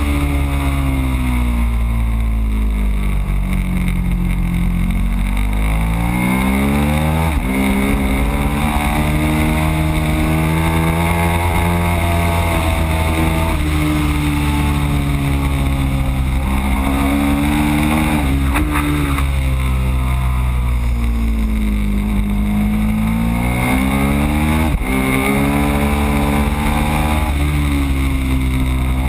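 Ducati Streetfighter's V-twin engine at full track pace, heard from a handlebar-mounted camera. The revs climb hard with a sudden drop at each of three upshifts, and twice sweep down as the bike brakes for a corner before pulling up again. Heavy wind buffeting on the microphone runs underneath.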